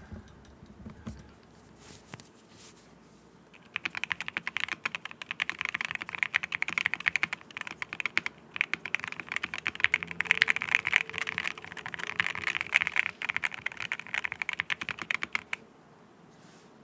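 Rapid typing on a mechanical keyboard, a quick stream of keystrokes with a brief pause partway through, starting a few seconds in and stopping shortly before the end.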